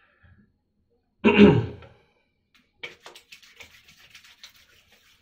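A short vocal sound about a second in, then from about three seconds on a run of faint, quick, sticky crackles: hands working a water-soluble gel-type pomade.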